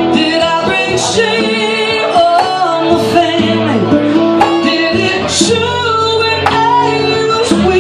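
Live acoustic music: a woman sings the lead melody over strummed acoustic guitars.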